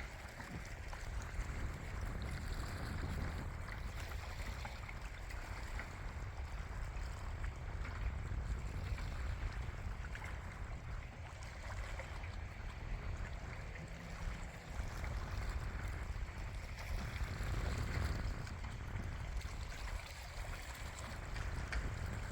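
Wind buffeting the microphone: a steady, uneven low rumble with a faint rushing hiss above it.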